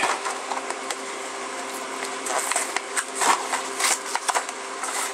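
Clear plastic blister packaging being handled, with irregular crinkles and clicks that gather about two to four seconds in. A steady low hum runs underneath throughout.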